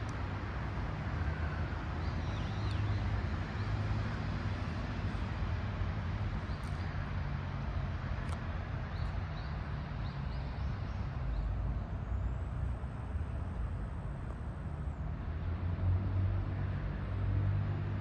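Steady rumble of city road traffic with a low hum, and a few faint short high chirps. A faint high whine holds for about three seconds past the middle.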